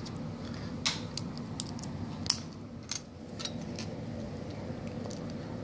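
Plastic Lego pieces being handled, giving a few scattered sharp clicks in the first half, over a steady low hum.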